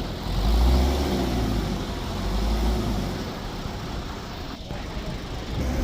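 Recovery truck's engine running with a low rumble while the car is unloaded, louder in the first second and again around two to three seconds in.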